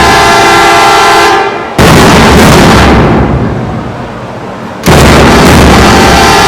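Loud dramatic intro sound effect: heavy booming hits, each with a held horn-like chord that slowly dies away, struck again about two seconds in and near five seconds.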